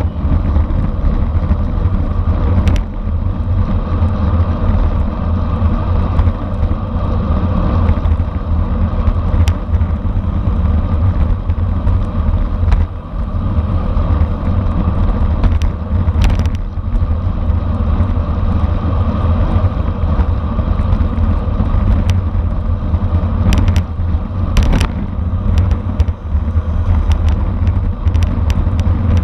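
Wind rushing over the microphone and tyre noise from a racing bicycle ridden at speed in a criterium. A few sharp clicks come through the steady rush.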